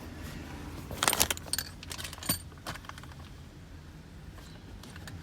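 Car keys jangling and clinking as they are handled: a quick cluster of clinks about a second in, then a few single clinks over the next second and a half.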